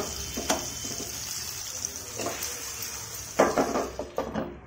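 Pumpkin pieces sizzling steadily in hot mustard oil in a frying pan, with several clanks of metal against the pan, the loudest a cluster about three and a half seconds in.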